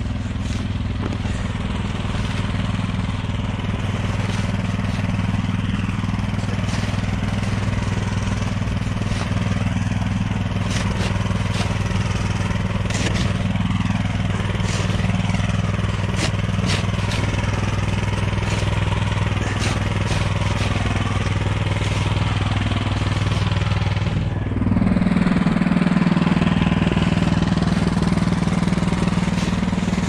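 A snowblower's petrol engine runs steadily nearby and gets louder about three-quarters of the way in, with a plastic snow shovel scraping and scooping packed snow over it in short strokes.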